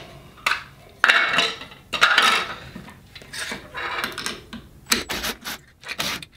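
Plastic fuse-holder covers and metal parts being handled and pried apart: irregular rubbing and scraping clatter, with a sharp click about five seconds in.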